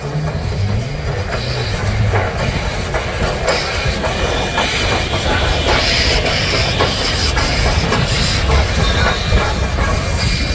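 Steam locomotive running slowly alongside the platform as it arrives, with wheels clicking over the rail joints and steam hissing.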